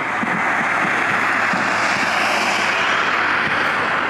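An airplane passing close by: a rushing engine noise that swells to a peak midway and begins to ease off near the end.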